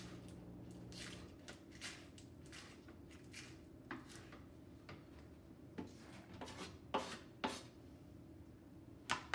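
Knife slicing rolled collard green leaves on a cutting board: irregular knocks of the blade striking the board, with a few louder strikes late on.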